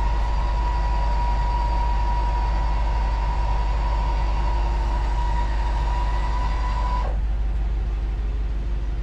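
Truck camper's electric jacks running under remote control as the camper is lowered onto the flatbed: a steady motor whine that stops about seven seconds in, over a steady low rumble.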